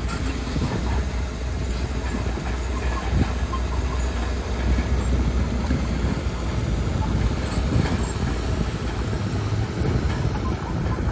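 Heavy diesel earthmoving machine running steadily under load, a constant low engine rumble with mechanical clatter over it.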